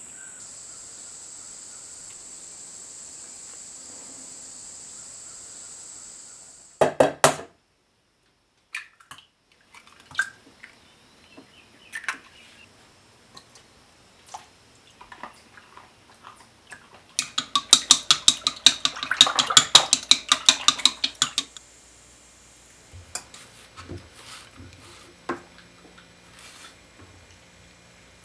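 Insects calling in a steady high-pitched drone for the first six seconds, followed by a few sharp clicks. Later a utensil beats eggs and half-and-half in a bowl, making rapid clinking strokes against the bowl for about four seconds, the loudest part; light kitchen knocks come before and after.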